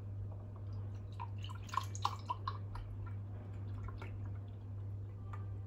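A quick run of small drip-like plinks and clicks about a second in, over a steady low hum.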